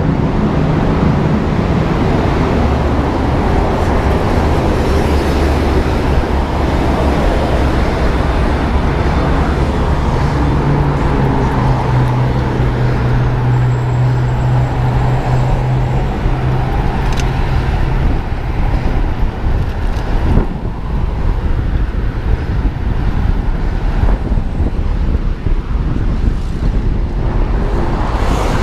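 Steady road and traffic noise heard from a bicycle riding among cars at 30–40 km/h: a continuous low rumble of passing vehicles and air rushing past. A low engine drone stands out for several seconds midway.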